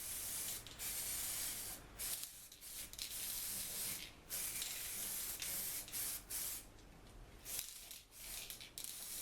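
Aerosol can of zinc-rich weld-through primer spraying in a series of short hissing bursts with brief pauses between them.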